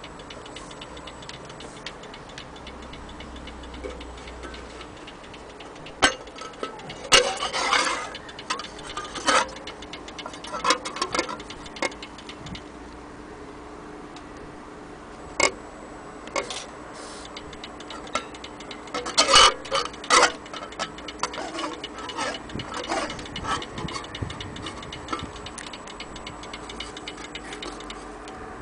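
Antique Ansonia metal-case mantel clock ticking steadily, its brass movement running. Several sharp, louder clicks and rattles come from the case being handled, bunched about a quarter of the way in and again about two-thirds of the way through.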